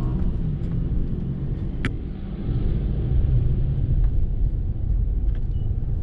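Low, steady rumble of road traffic moving through a railway level crossing, growing louder about halfway through, with one sharp click a little under two seconds in.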